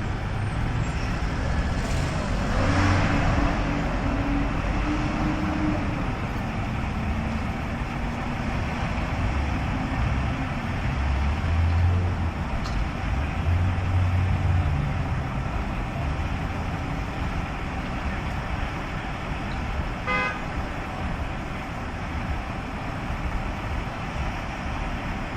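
Steady street traffic noise, with vehicles passing and a brief horn-like beep about twenty seconds in.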